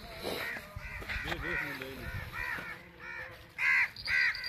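A bird's harsh, crow-like calls, repeated about two to three times a second and getting louder near the end.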